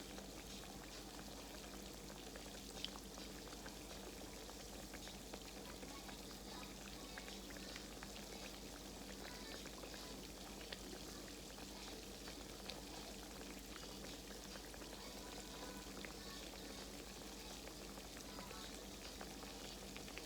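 Croquettes frying in hot grease: a steady sizzle scattered with small crackles and pops.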